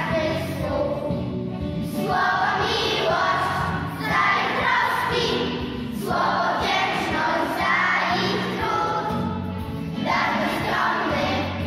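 Children's choir singing a song together, in phrases of about two seconds with short breaks between them.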